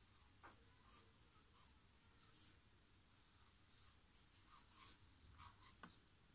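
Faint scratching of a felt-tip marker on paper, writing cursive letters in short, irregular strokes.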